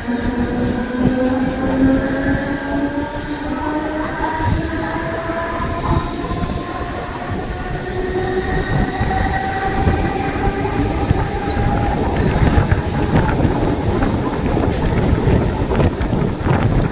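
Mumbai suburban electric local train pulling out along the platform: the traction motors whine, rising steadily in pitch as it gathers speed, over a loud rumble of wheels on rails. Wheel clatter grows toward the end, heard through the open doorway.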